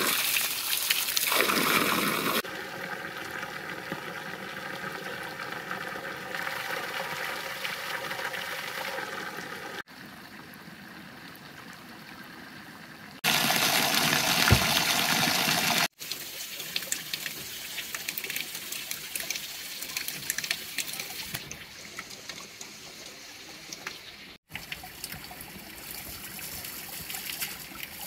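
Running water: a shallow stony stream flowing and spring water splashing from a pipe spout onto rocks, heard as a steady rushing trickle that jumps abruptly in loudness several times as the shots change.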